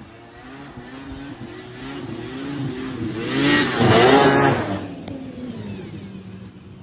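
Snowmobile engine approaching and passing close by. Its pitch wavers with the throttle, it is loudest as it goes past about four seconds in, then it fades as it moves away.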